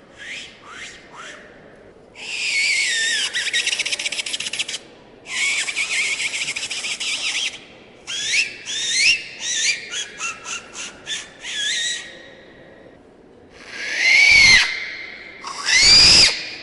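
Ancient Mexican clay whistle resonators blown in harsh, hissing blasts with a pitch that bends up and down: two long blasts, then a run of short quick blows, then two loud swooping blasts near the end.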